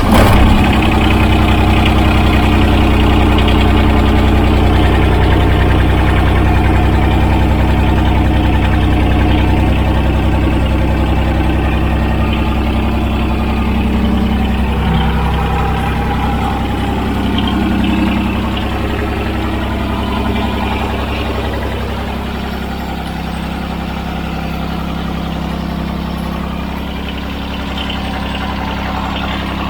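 John Deere tractor's three-cylinder Yanmar diesel engine catching right at the start, then idling steadily. The running eases slightly about two-thirds of the way in.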